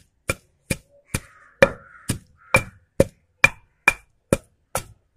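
Stone pestle pounding roasted dry red chillies and salt in a black stone mortar (rolu): steady, evenly spaced knocks of stone on stone, about two strikes a second.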